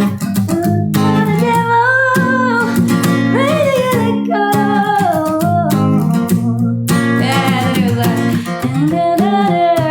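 Acoustic guitar strummed, with a woman singing a melody over it.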